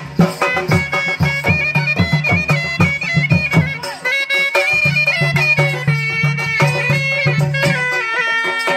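Odia folk music: a mahuri, a shehnai-type double-reed pipe, plays a stepping, nasal melody over the steady beat of barrel drums. The drums drop out briefly about four seconds in and again near the end.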